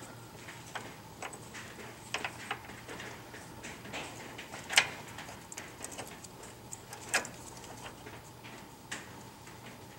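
Irregular light metallic clicks and knocks of bolts, washers and spacers being handled and fitted while a bump stop is lined up on a truck's front suspension. Two sharper knocks stand out, about five and seven seconds in.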